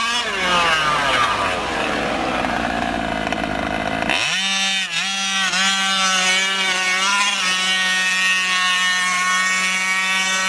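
Two-stroke petrol engine of a 1/5-scale Losi 5ive-T RC truck running at speed, with a high, chainsaw-like buzz. In the first few seconds the pitch drops, with a rush of noise, as the truck passes close. It then holds a steady buzz with a few short dips in revs.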